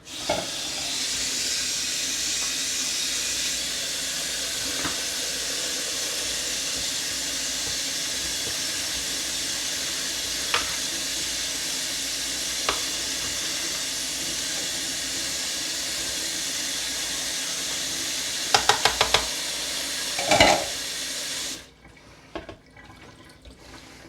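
Kitchen tap running steadily as canned sauerkraut is rinsed under it to take off some of the salty taste. Near the end there is a quick run of clicks and a knock, and then the water stops.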